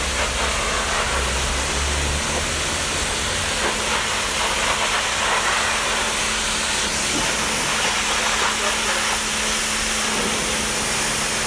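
Steady hissing spray from a car-detailing cleaning tool, running without a break over a constant motor hum.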